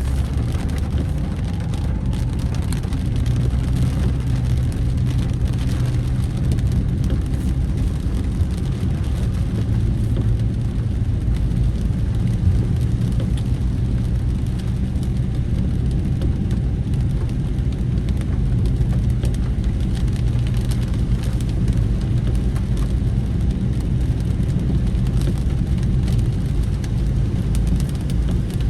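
Steady low rumble of a vehicle driving along a road: engine and tyre noise with no sharp events.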